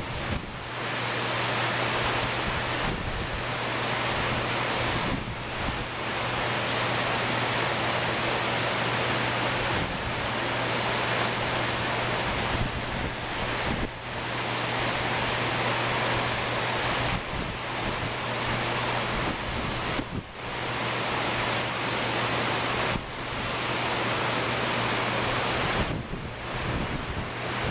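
Ocean surf breaking and washing onto a sandy beach: a steady, dense wash of waves that dips briefly every few seconds, with wind on the microphone.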